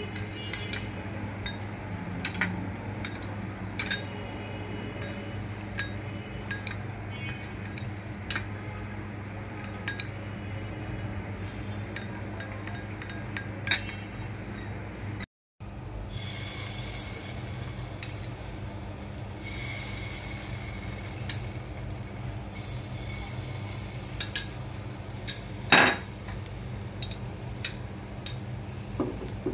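Steel spoons stirring food colouring into batter in glass bowls, with frequent light clinks of spoon on glass over a steady low hum. About halfway in the sound cuts out briefly, and after that there are only a few clicks and one sharper clink near the end.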